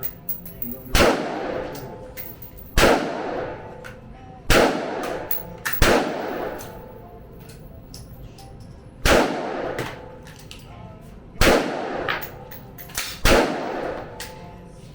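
Semi-automatic AR-15-style rifle fired in single shots, about seven in all, spaced irregularly one to three seconds apart, each shot echoing as it dies away.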